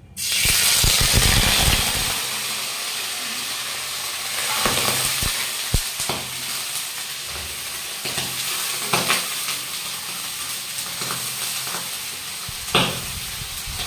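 Washed cauliflower florets dropped into smoking-hot mustard oil in a kadhai: a sudden loud burst of sizzling that settles into a steady frying hiss, with sharp pops now and then. The pops are oil spattering off water left on the florets from washing.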